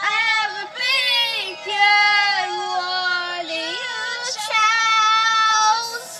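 A young girl singing a pop-ballad melody in a few phrases of long held notes that slide and bend in pitch, the longest held for about two seconds.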